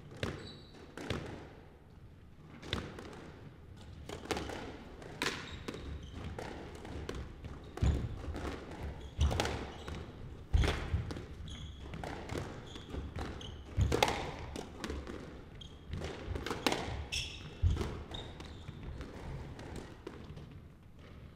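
Squash rally: sharp racquet strikes and the ball smacking the court walls at irregular intervals, with players' footfalls and short shoe squeaks on the wooden floor. The hardest hits come around eight to eleven seconds in and again near fourteen seconds.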